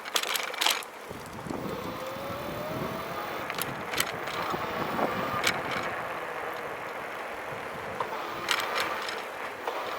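Electric fatbike being ridden: the electric motor's faint whine rising in pitch about a second and a half in, over steady tyre and wind noise, with a few scattered clicks and knocks. No creak comes from the frame's hinge joint, which has been cured.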